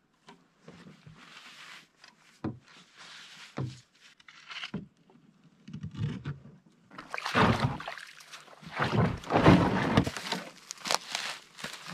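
Canoe coming ashore. Paddle strokes swish through the water, with a short knock on the hull about every second. Then louder scraping, rustling and bumping as the canoe noses into the brushy bank and the paddler climbs out.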